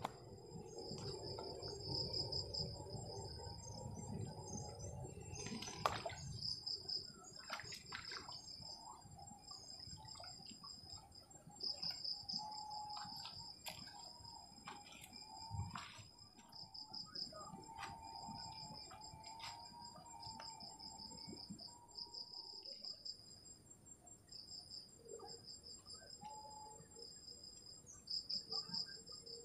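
Crickets trilling in short repeated bouts, high-pitched and pulsing, with a few scattered knocks.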